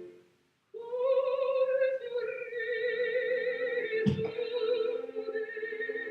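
A voice sings one long held note with vibrato, operatic in style, starting about a second in. A short knock sounds about four seconds in.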